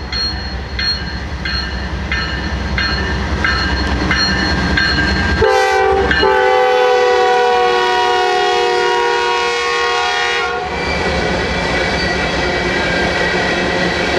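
GE Dash 9 (C40-9W) diesel locomotive approaching with its engine rumbling and a bell ringing steadily, about three strokes every two seconds. About five and a half seconds in, its air horn sounds one long blast of about five seconds as it passes close by. Then rock hopper cars roll past with steady wheel noise.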